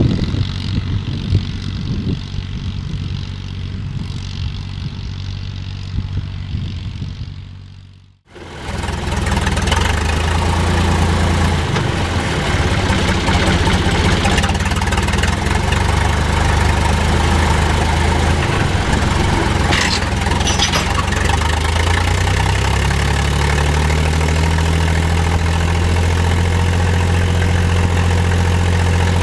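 Three-cylinder diesel tractor engine running steadily under load. About eight seconds in the sound cuts abruptly and returns louder and closer, and its pitch rises slightly later on.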